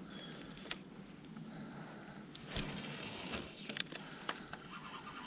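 A lure cast with a spinning rod and reel: a sharp click under a second in as the bail is opened, a short rush of noise about halfway through as the rod swings and line runs off the spool, then several sharp clicks as the bail is shut and the reel handle turned.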